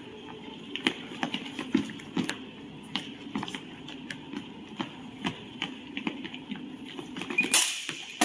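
Scattered sharp taps and knocks of a HEMA longsword bout in progress, from the fencers' footwork and their swords striking, irregular throughout. A louder burst of noise comes just before the end.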